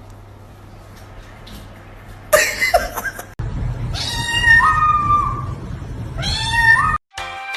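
A cat giving two long, loud yowling meows, the second rising in pitch at its end. A harsh, noisy sound comes a little over two seconds in, before them.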